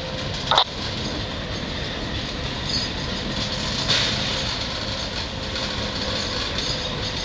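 Railroad tank car rolling slowly along jointed track in a shoving move, a steady rumble of steel wheels on rail, with a short burst just after the start and a single click about four seconds in.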